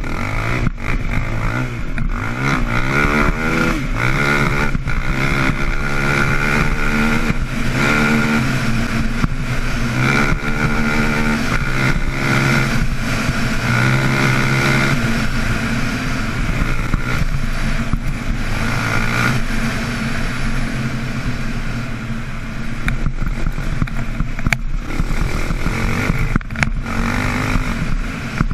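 KTM 525 XC quad's single-cylinder four-stroke engine under way, revving up through the gears and easing off again over and over as it is ridden hard along a dirt track. Short knocks from the rough ground come through here and there.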